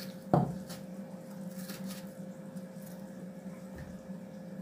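A kitchen knife cuts through onion on a wooden cutting board, with one sharp knock of the blade on the board about a third of a second in, then a few faint clicks. A steady low hum runs underneath.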